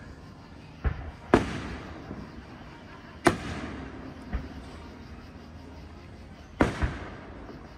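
Aerial fireworks shells going off: about six sharp bangs, the loudest about a second and a half in and a close pair near the end, each followed by a rolling echo.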